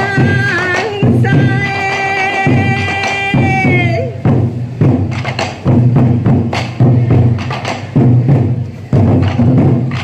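Sansa odori dance music: taiko drums beating a steady rhythm under a long held melody line. The melody slides down and drops out about four seconds in, leaving the drum beats alone.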